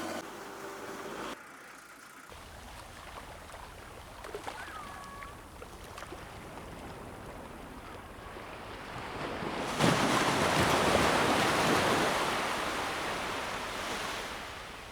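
Sea waves washing on a shore: a low, even wash, then about two-thirds of the way in a wave breaks with a sudden loud rush that slowly fades.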